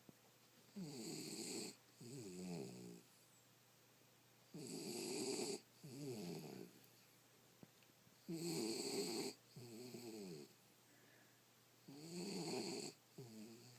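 Jack Russell puppy snoring in a steady rhythm: four snore cycles, one every three to four seconds, each a longer snore of about a second followed by a shorter one that falls in pitch.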